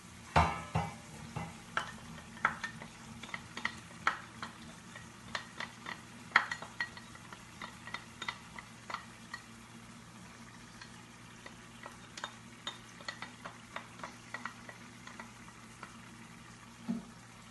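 Wooden spatula scraping and tapping against a white tub as tomato sauce is scraped out into a pot of simmering beef stew: scattered irregular clicks and taps over a low steady hum.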